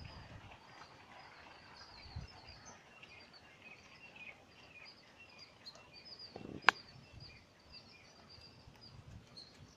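Small birds chirping busily with many short, quick chirps. A single sharp click about two-thirds of the way through is the loudest sound, and a few soft low thumps come in between.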